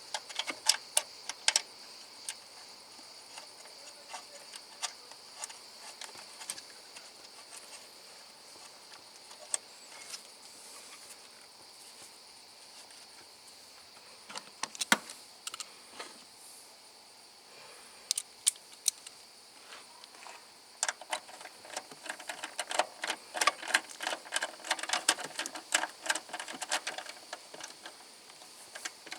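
Scattered clicks and clinks of hand tools and parts being handled, with a denser run of rapid clicking in the last third. A steady high-pitched whine runs underneath.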